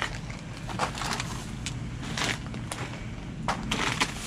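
Plastic trash bags and snack bags crinkling in short bursts, several times, as a reach-grabber tool pulls at them, over a steady low rumble.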